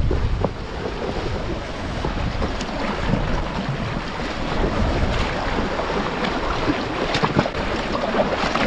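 Sea washing over rocks at the water's edge, with wind buffeting the microphone, heaviest at the start, and a few light knocks.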